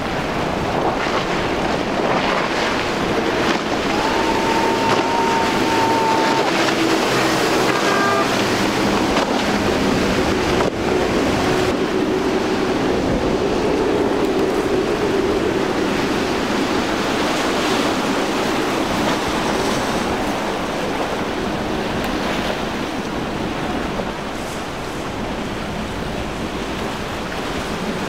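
Outboard-powered center-console boats running at speed through choppy water: the engines drone under a steady rush of wake and spray, with wind buffeting the microphone.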